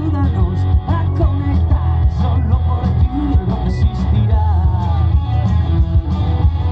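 Live rock music from a band through PA speakers: guitar and keyboard over heavy bass and a steady beat, with a voice singing melodic lines.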